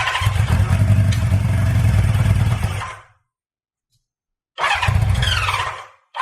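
Honda CB550F inline-four being turned over on its electric starter in separate bursts. The first crank lasts about three seconds and stops. After a short silence a crank of about a second and a half follows, and another begins at the very end.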